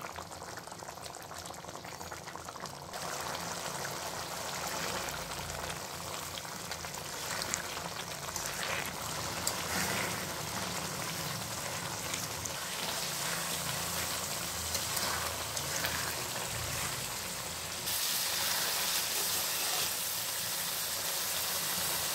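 Goat tripe boiling in a frothy spiced water gravy in a wide pan, bubbling steadily as the liquid cooks down, with a few clicks of a metal spatula in the pan.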